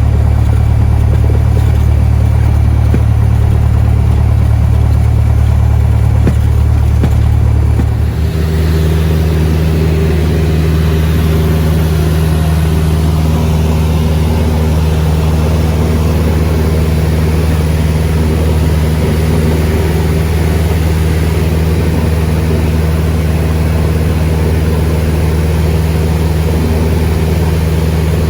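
Cessna 172 light aircraft's piston engine and propeller running steadily. About eight seconds in, the engine note shifts as the engine speed changes, then holds steady again.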